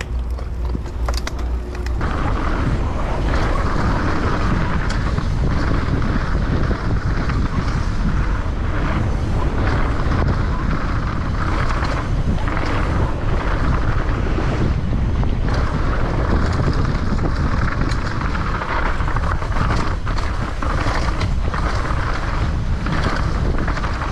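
Downhill mountain bike ridden fast down a rough trail: tyres rumbling over dirt, wind rushing over the microphone, and short knocks as the bike hits bumps. The noise builds about two seconds in as the bike picks up speed.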